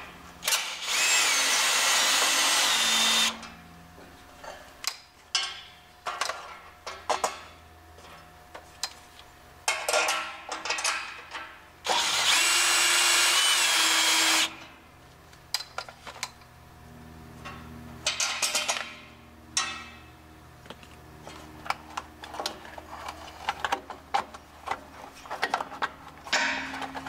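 Cordless drill with a nut-driver socket spinning out the bolts of a propane regulator's metal cover, in two runs of about three seconds each, one about a second in and one about twelve seconds in, its whine shifting in pitch. Between the runs come scattered clicks and knocks of the metal cover and bolts being handled.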